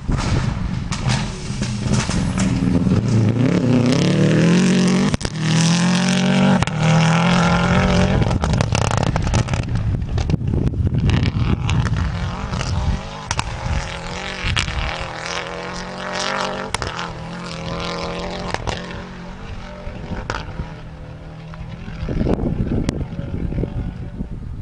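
Rally car engine revving hard and shifting up through several gears as the car passes on a dirt stage, each rise in pitch broken by a gear change. The engine then runs on at high revs, growing fainter as the car drives away.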